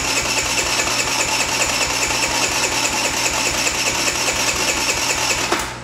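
Electric starter cranking over a Tao Tao 50cc GY6 (139QMB) scooter engine in a fast, even chug, not firing because its charge coil is disconnected for testing; the cranking stops shortly before the end.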